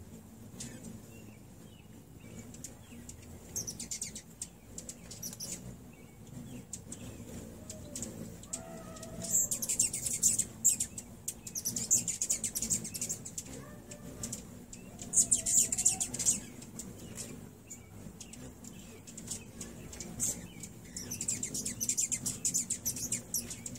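Hummingbirds squabbling at a feeder: repeated bursts of high, squeaky chittering chase calls, the loudest about ten seconds in and again a few seconds later, over a steady low hum.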